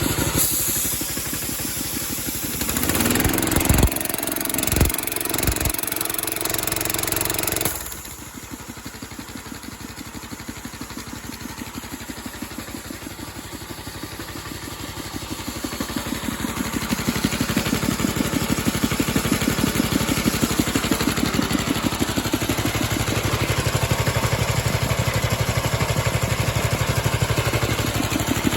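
Compressed air hissing out of the tank of a gas-powered air compressor for about eight seconds, then cutting off suddenly, with a few knocks and the old 8 hp Briggs & Stratton engine running underneath. From about halfway the engine comes up from idle and runs steadily louder, driving the belt-driven Rol-Air pump to refill the tank as the throttle unloader opens it up.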